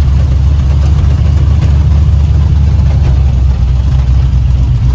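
Chevy 350 small-block V8 with a big solid roller cam, running steadily at low revs with a loud low rumble, the 1969 Chevy C10 pickup moving in low gear.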